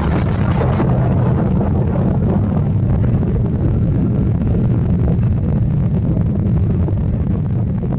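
Beechcraft C-12 Huron's twin PT6A turboprop engines at takeoff power as the aircraft rolls down the runway and lifts off, a steady, low-heavy engine and propeller sound.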